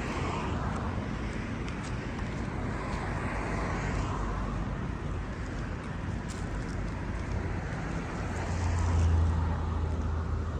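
Night street noise: a steady rush of road traffic, with a vehicle's low engine hum swelling about eight seconds in and dying away near the end.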